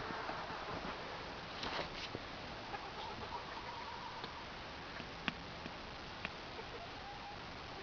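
Chickens making soft, drawn-out clucking calls over a steady hiss, with a few sharp clicks.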